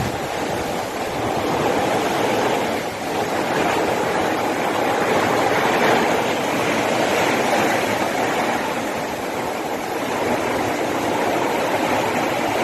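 Heavy rain falling in the outer bands of a cyclone: a steady, loud rush of rain that swells a little now and then.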